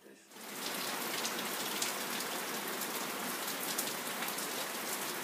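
Steady rain falling, with many separate drops splashing. It starts suddenly just after the beginning and keeps an even hiss.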